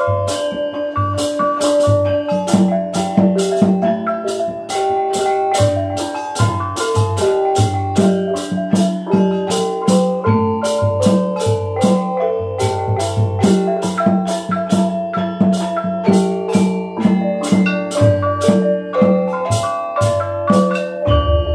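Osing (Banyuwangi) gamelan playing: rows of small bronze kettle gongs are struck with mallets in a steady, fast stream of ringing metallic notes, several a second, with low kendang drum strokes underneath.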